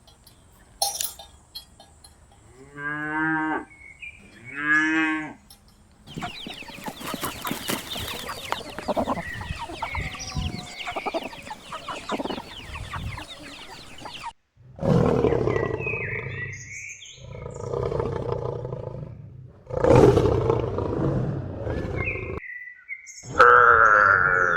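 A string of farm animal calls from separate clips. First come two short pitched calls a couple of seconds apart, then a stretch of busy noisy sound, then several long, loud, harsh calls that cut in and out abruptly.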